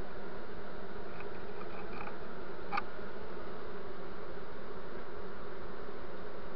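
A dense swarm of honeybees buzzing steadily at close range, with a brief click about three seconds in.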